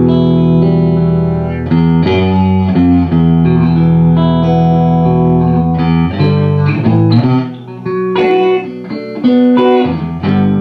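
Electric guitar played through a Fender Champ 5F1 tube amplifier set at volume 4, tested after a rebuild with new caps and a rebias. Held chords ring for about six seconds, then gives way to picked single notes.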